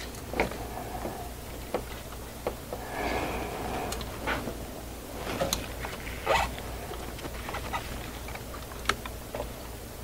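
Scattered light clicks and taps of a hand fitting the cable and its nut onto the new starter motor's terminal, with some rustling of wiring, over a low steady hum.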